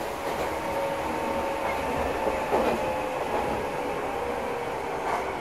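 Meitetsu Inuyama Line express train running, heard from inside the passenger car: a steady rumble of the wheels on the track with faint steady whining tones.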